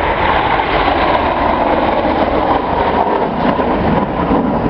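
Steady jet noise from a formation of Red Arrows BAE Hawk T1 jets flying past overhead. It is loud and even, with no distinct pitch.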